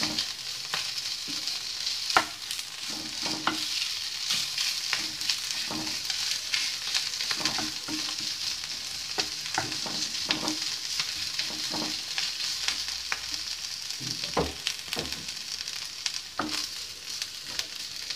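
Spiced potato and onion filling sizzling in a frying pan while a wooden spatula stirs and scrapes it, with a steady frying hiss. Frequent short knocks of the spatula on the pan break through it, a sharper one about two seconds in.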